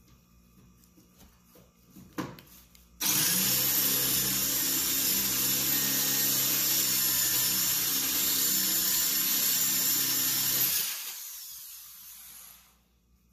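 A motor-driven machine, like a power tool, switches on suddenly about three seconds in. It runs steadily with a hum and a hiss for about eight seconds, then stops, and the noise trails off over about two seconds.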